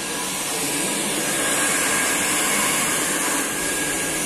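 A handheld hair dryer running steadily: an even blowing hiss with a faint steady whine.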